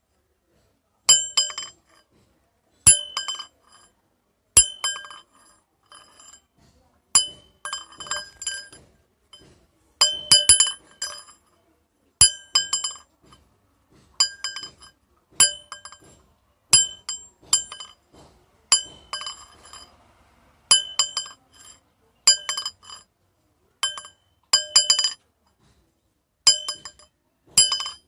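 Metal rods clinking against each other, each strike a short bright ring with the same set of tones. The strikes come singly or in quick clusters about every one to two seconds.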